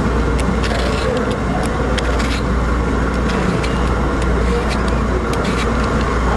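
A steady low rumble, with short, light scraping clicks from a hand-held Y-peeler stripping the skin off a small seckel pear.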